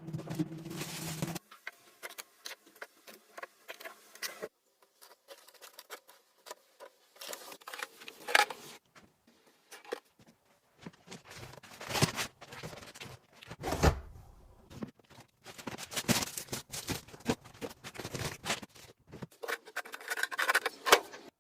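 Food packaging and containers being handled while a fridge is stocked and organised: scattered plastic rustling, rubbing, light knocks and clicks, the loudest knocks around the middle. A low steady hum stops about a second in.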